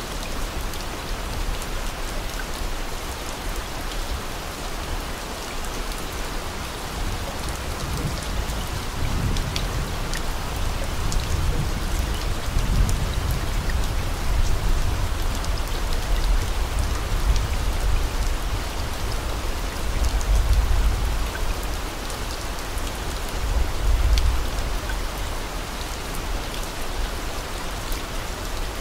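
Steady rain sound, an even hiss with fine pattering drops, with a low rumble swelling up about nine seconds in and again around twenty seconds.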